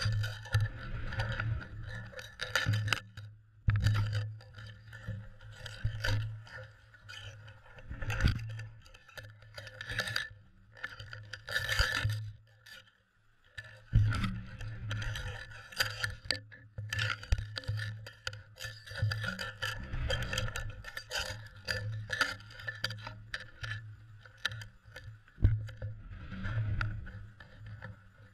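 Muffled, irregular knocking, clicking and scraping from a GoPro action camera sealed in its waterproof housing on an underwater cod jigger, as the jig is jerked through the water, over a steady low hum.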